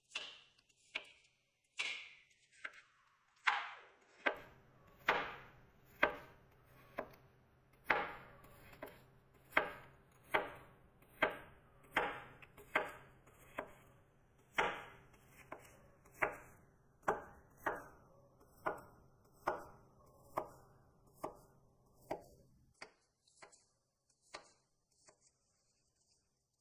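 A cleaver slicing a white radish into thin rounds on a wooden cutting board: a crisp cut and knock of the blade on the board with each stroke, a little over once a second in a steady rhythm. Near the end the strokes turn faint and sparse.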